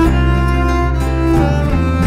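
Background music: sustained bowed strings (violin and cello) holding slow chords that change about a second and a half in and again near the end.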